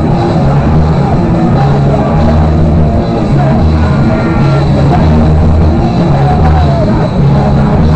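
Live rock band playing loud to a packed room.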